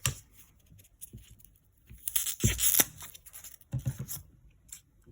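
Handling noise from setting up a supplement-on-foam test: a few short, harsh bursts of tearing or crinkling, with the loudest about two and a half seconds in.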